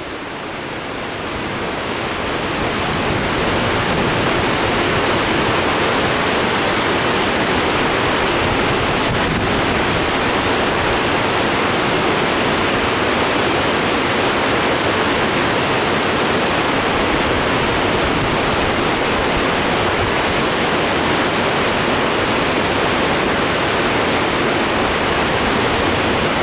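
Steady rushing roar of the muddy, rain-swollen Neshaminy Creek pouring through a dam and its rapids, swelling over the first few seconds and then constant. The creek is running high and faster than it's supposed to be after two days of rain.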